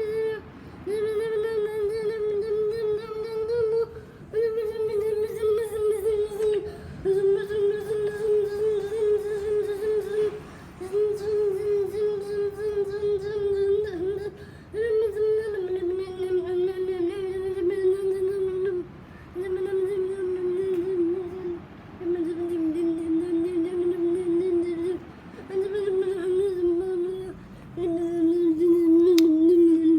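Noisy ceiling fan giving off a loud, wavering whine that breaks off briefly every few seconds and drops in pitch near the end.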